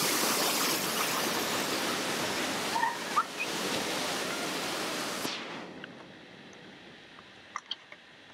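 Seawater surging and spilling over lava rocks at the shoreline, a steady loud rush that drops away fairly suddenly about five seconds in. A quieter lapping follows, with a few small drips and clicks near the end.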